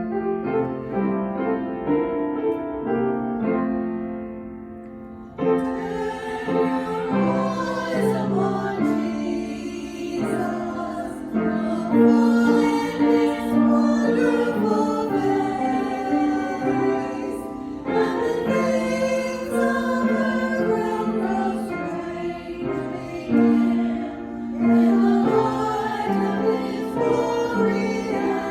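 Church offertory music: voices singing a slow sacred piece as a choir, with instrumental accompaniment. It grows fuller and louder about five seconds in.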